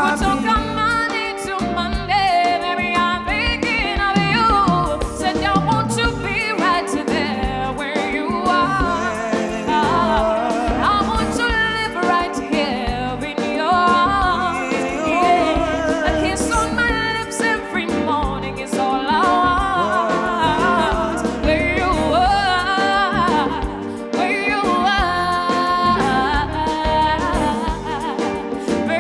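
Live band music with a voice singing a sliding melody over a continuous accompaniment.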